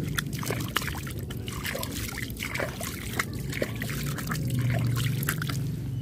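Water trickling and splashing, with many irregular sharp clicks and ticks over a low steady hum.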